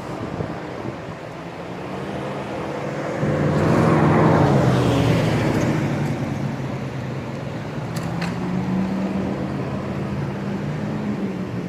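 A motor vehicle engine running steadily, with a louder rush of noise that swells and fades about four to six seconds in.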